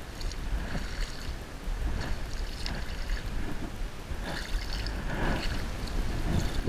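Water lapping and splashing, with a steady low rumble underneath.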